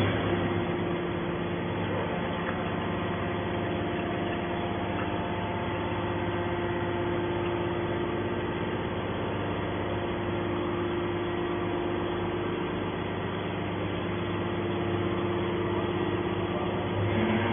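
A hydraulic scrap metal baler's power unit runs with a steady, even hum while its ram slowly pushes a compressed bale of aluminium scrap out of the chamber.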